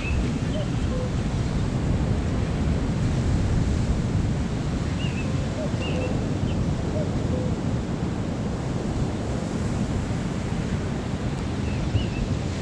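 Ocean surf washing against the shore, with wind buffeting the microphone in a steady low rumble. A few faint short high chirps come through about five to seven seconds in and again near the end.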